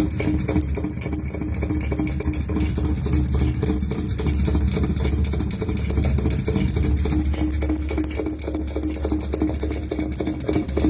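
Machine running steadily with a rapid, even pulsing over a low hum and a steady tone, which the uploader takes for an air compressor running underground to pump out water.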